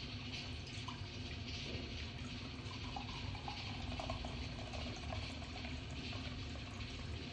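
Cola poured in a steady stream from a can into a glass mug, the liquid splashing and fizzing as the glass fills.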